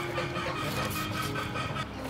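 Cleaver chopping raw meat on a wooden chopping block, a run of quick, uneven knocks, over soft background music.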